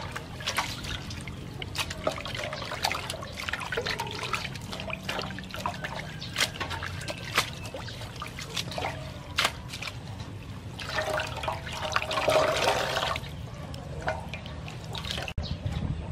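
Water splashing, sloshing and trickling as hands wash and squeeze a clump of seaweed in a metal basin of water, with a louder stretch of running water a little past the middle.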